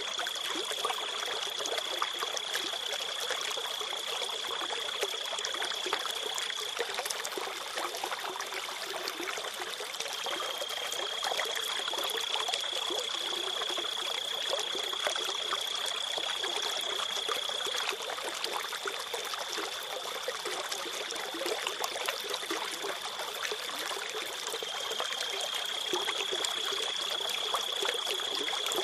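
Steady rushing noise with a thin high whine running through it; the whine shifts slightly in pitch a few times.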